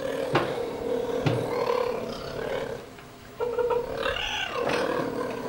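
Cheetahs growling over a kill: a long, steady, pitched growl that breaks off about three seconds in and starts again, with a few short, sharper calls over it.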